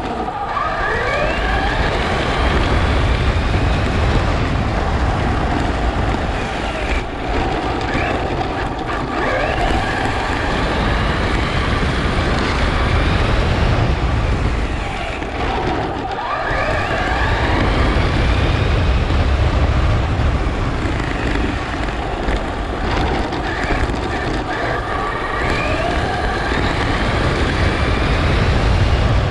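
Traxxas Slash 4x4 RC truck's electric motor whining as it accelerates on runs, its pitch climbing several times, over heavy low tyre and wind rumble heard from the onboard camera.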